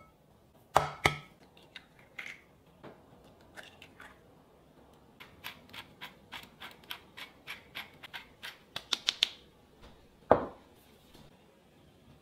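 Two sharp taps about a second in, typical of eggs being cracked on the rim of a glass bowl. Then a run of quick, even clicks that speed up near the end as black pepper is ground over the bowl, and one more knock shortly after.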